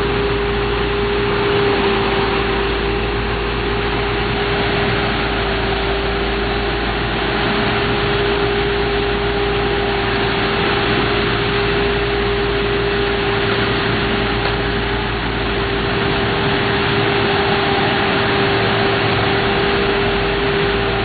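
Heavy diesel paving equipment running steadily at a constant speed, with an even mechanical rush and a steady droning hum.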